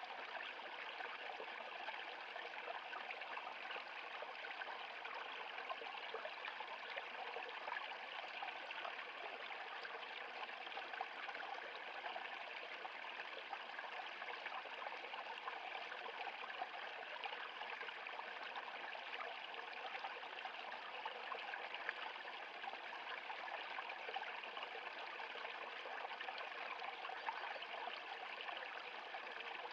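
Stream water running over rocks: a steady, even babble and trickle.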